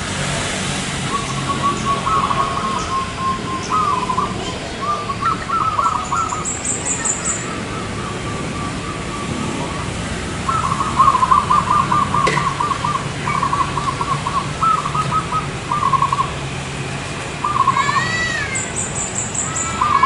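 Zebra dove (perkutut) cooing in several phrases of quick staccato notes, the longest run starting about halfway through. Brief high chirps come in twice, once near the middle and again near the end.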